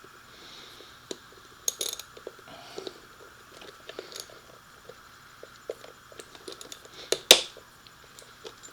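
Metal hand tools and small hardware clinking and tapping in irregular small clicks, with a sharper metallic clack about seven seconds in.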